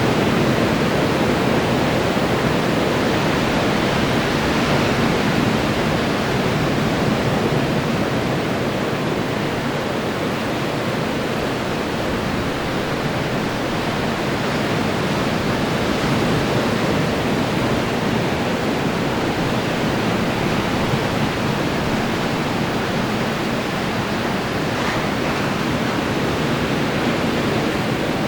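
Ocean surf breaking on the shore: a steady wash of waves that swells and eases gently.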